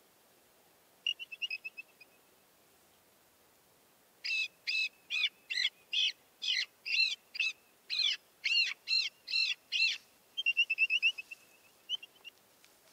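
A series of about fourteen high-pitched calls, each a short rise and fall, at two to three a second. Quick chattering trills come about a second in and again just after the series ends.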